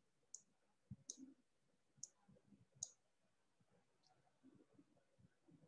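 Faint sharp clicks of a computer mouse button, about five of them under a second apart, over near silence.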